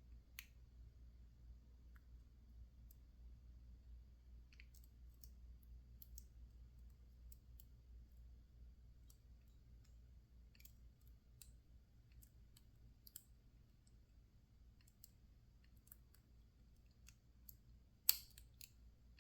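Faint, scattered small clicks of a lock pick working the pins of a PacLock 410 Pro padlock held in a false set, with one sharper click near the end.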